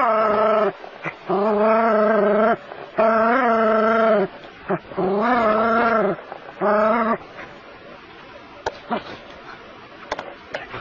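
A small dog baying at a snake: five long, drawn-out howling barks at a steady pitch, the last one short. The barking stops about seven seconds in.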